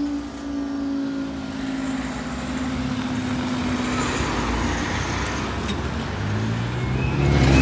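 A steady hum from a departing diesel train fades out over the first few seconds. Road traffic noise builds as vehicles move off across the level crossing and grows louder near the end.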